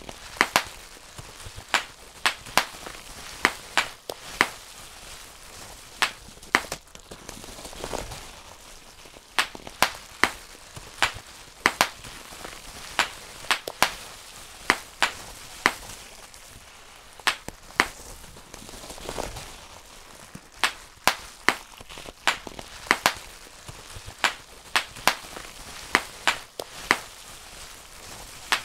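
Bubble wrap being popped by hand: sharp single pops, roughly one or two a second at an uneven pace, some in quick pairs, with the plastic sheet crinkling between them.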